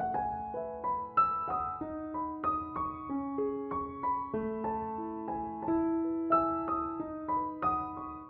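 Gentle solo piano music playing a slow melody, a new note roughly every half second.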